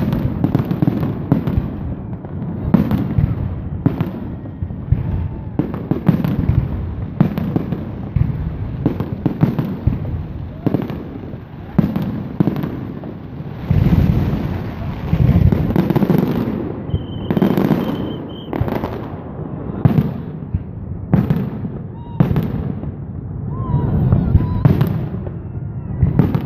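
Aerial fireworks display: shells bursting one after another in quick succession, with crackling, and a brief high whistle about two-thirds of the way through.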